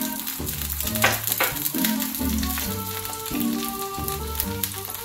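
Oil sizzling and crackling under a carrot dosa on a hot griddle as the batter fries. Background music with held notes plays over it.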